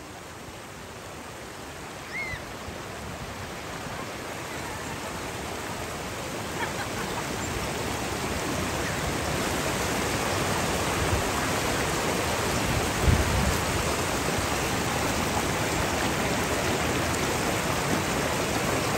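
Mountain stream water rushing over rocks: a steady noise that grows louder over the first ten seconds or so, then holds, with one short low thump about thirteen seconds in.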